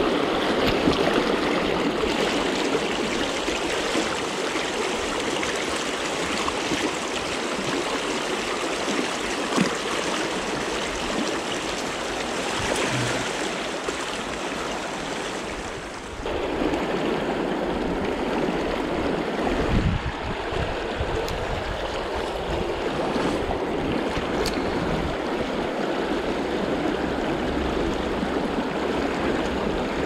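Fast river current rushing and splashing around a wading angler's legs, heard close to the water surface. The sound dips briefly about halfway through, then carries on.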